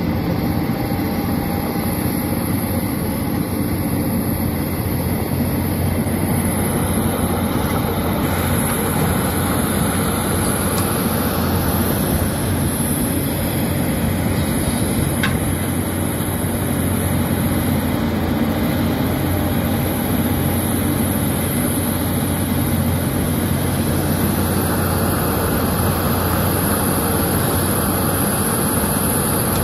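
Caterpillar 320D hydraulic excavator's diesel engine running steadily under load as it digs dirt and swings to load a dump truck.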